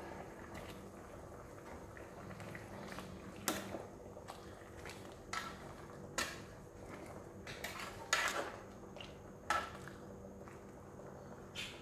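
A metal ladle stirs soup in an aluminium pot, clinking and scraping against the pot about six times, over the soup simmering softly.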